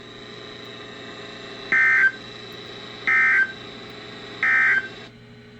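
Emergency Alert System (SAME) end-of-message data bursts on a NOAA Weather Radio broadcast: three short, raspy digital tone bursts about 1.4 s apart, marking the end of the severe thunderstorm warning. They sit over the broadcast's faint steady hum, which cuts off near the end.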